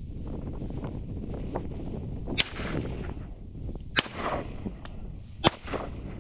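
Three shotgun shots about a second and a half apart, each with a short echo, over steady wind noise on the microphone.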